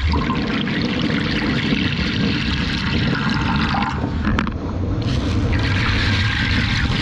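Running water, breaking off briefly a little past four seconds in, then running again.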